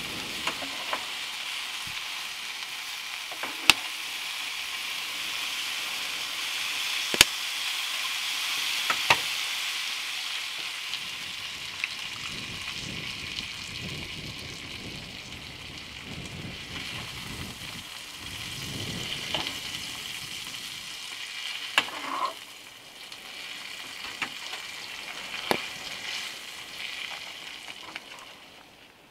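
Bacon and butter sizzling in a frying pan, a steady hiss, with a few sharp clicks of a metal spatula against the pan. The sizzle fades near the end.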